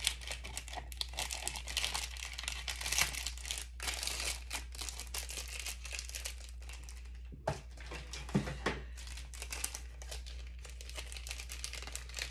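Small clear plastic jewelry bags crinkling continuously as they are handled and pulled open. There is a brief break a little past halfway, with two light knocks.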